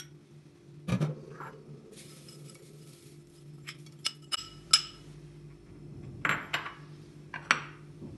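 Metal spoon knocking, clinking and scraping against porcelain bowls as food is scraped from a small bowl into a larger one: a knock about a second in, a quick run of ringing clinks in the middle, and two short scrapes near the end, over a steady low hum.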